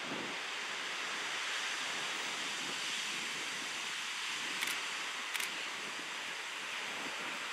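Two Goodwin-built Alco DL531 (NSW 48 class) diesel locomotives approaching with a train: a steady rushing noise that swells slightly as they draw nearer, with two sharp clicks a little under a second apart partway through.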